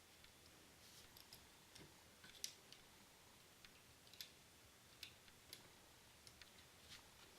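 Near silence with faint, irregular ticks and crackles, as a soldering gun heats solder in the cup of a brass bullet connector.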